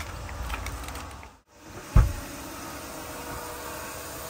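A single dull thump about two seconds in, the loudest thing here, over a steady faint hiss.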